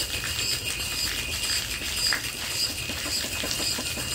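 Worthington boiler feed steam pump running on steam, with a steady beat of about two strokes a second. Its discharge jet splashes onto the pavement, pumping strongly under a lot of pressure.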